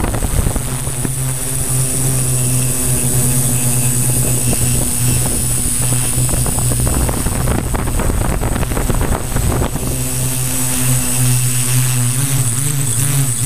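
Multirotor drone's electric motors and 15x5.5 propellers, heard from the onboard camera, holding a steady hum with a high motor whine above it. The pitch wavers slightly near the end as the motors adjust. A rough low rumble of wind on the microphone runs underneath.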